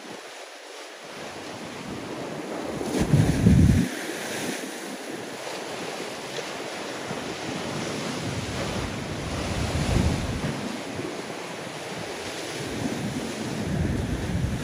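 Ocean swell surging and breaking on a rock ledge, with wind buffeting the microphone in heavy gusts, the strongest about three seconds in.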